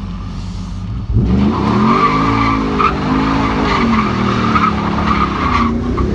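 Pickup truck engine revving up and down, heard from inside the cab, with tires squealing as the truck is driven hard through a turn. The squeal and the revs begin about a second in.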